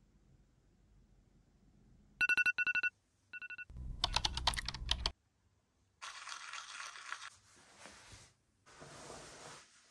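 A few short, high electronic beeps about two seconds in, the loudest sound, followed by a quick run of clicks and clatter and later two stretches of hissing, rustling noise.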